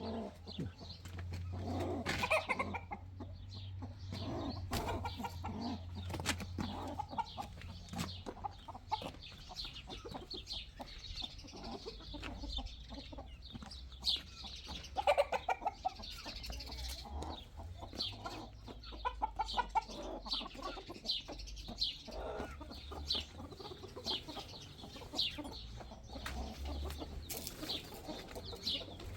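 Chickens clucking, with many short calls throughout over a low rumble.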